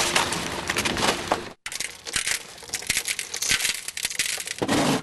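Debris crunching and crackling underfoot as someone steps through storm wreckage of insulation, splintered material and broken glass. The sound cuts off abruptly about a second and a half in, then resumes as irregular crunching and clinking of broken glass and rubble.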